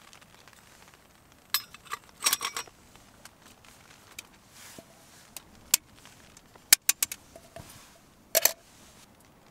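Metal clinks and clatters of a Trangia cook set being handled: the brass simmer ring and a metal pot knocking against the stove and its windshield. Scattered sharp clinks, bunched about two seconds in, again around seven seconds, and near the end.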